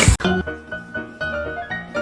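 Piano music, a run of clearly struck notes in a quick, even rhythm, starting just after a short burst of noise at the very beginning.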